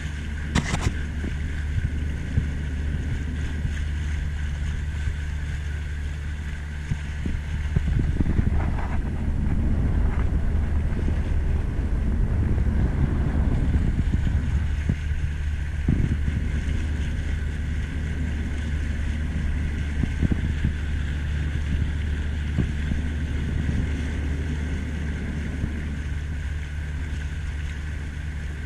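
Wind rumbling on the microphone of a camera riding on a kayak on open water, with water lapping and splashing against the boat. The rumble is steady and grows louder for a while partway through.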